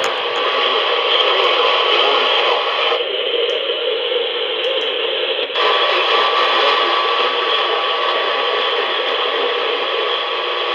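Radio static: a steady hiss with no voice on it. About three seconds in it turns narrower and duller for a couple of seconds, then opens out again.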